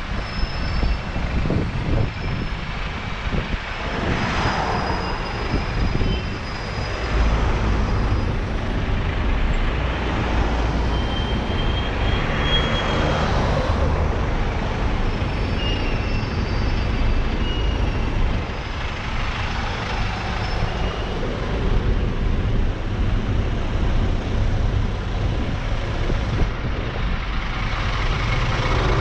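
Motorcycle riding in slow city traffic: engine running with wind and road rush, rising and falling several times as it speeds up and slows, with buses and cars idling and moving close by.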